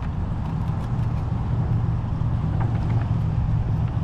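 Wind buffeting the microphone: a steady low rumble, with a few faint clicks about two and a half seconds in.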